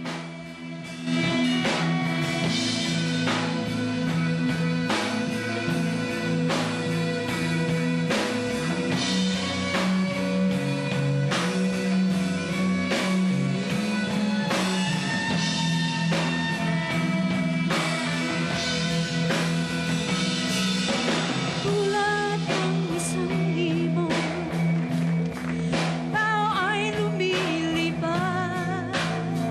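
Live rock band playing: guitars and bass holding low sustained notes over a drum kit keeping a steady beat. About two-thirds of the way through, a wavering higher melody line comes in over the band.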